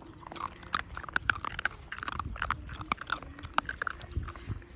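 Puppies crunching and chewing dry biscuits: a quick, irregular run of sharp crunches.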